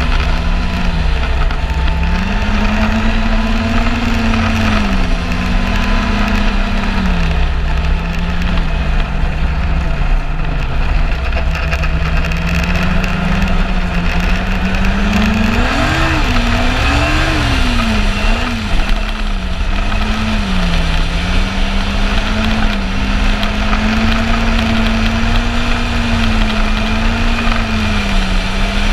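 Yamaha Apex snowmobile's four-stroke four-cylinder engine running along the trail, its pitch rising and falling with the throttle, with a quick rev up and down about sixteen to eighteen seconds in. A steady rushing noise runs underneath.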